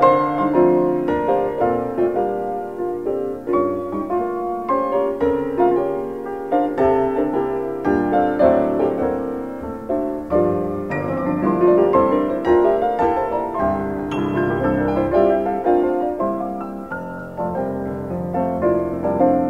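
Background classical piano music, a continuous flow of changing notes.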